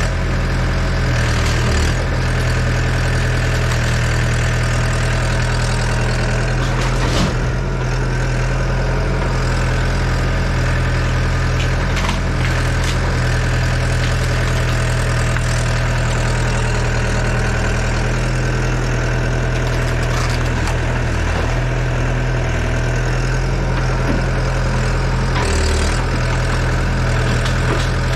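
Yanmar Vio80 excavator's diesel engine running steadily, with a few short knocks now and then.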